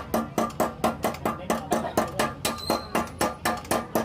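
Hammer striking the sheet-metal of a motorcycle fuel tank in a quick, even rhythm of about four blows a second, each blow ringing briefly.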